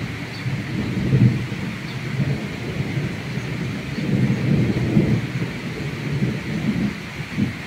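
Rain falling with a steady hiss, under low, uneven rumbling that swells and fades.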